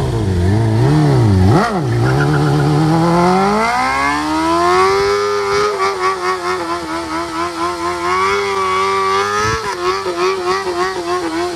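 Superbike engine blipped a few times, then revved up over about three seconds and held high, the revs wavering, while the rear tyre spins against the ground in a burnout.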